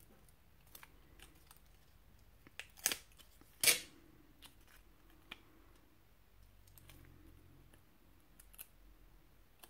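Paper and vellum being handled: soft rustling with scattered small crinkles and clicks, and two sharper crackles about three and almost four seconds in, the second the loudest.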